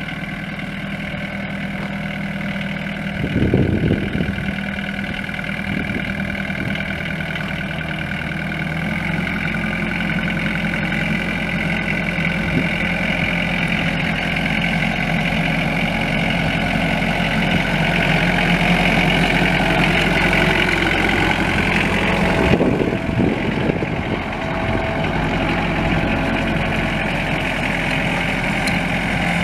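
A compact tractor's Mitsubishi S4L 1.5-litre four-cylinder diesel engine runs steadily. Its note changes and builds up through the middle, then drops back abruptly about two-thirds of the way through. A brief louder knock-like noise comes a few seconds in.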